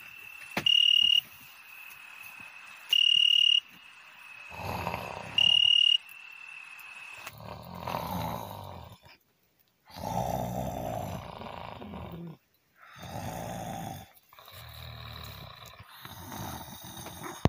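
A person snoring in a run of long, rough breaths with short pauses between them. Under the first few seconds runs a steady high-pitched tone with four louder beeps.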